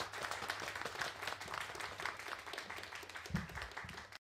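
Small audience applauding. A dull thump comes a little over three seconds in, and the clapping cuts off suddenly near the end.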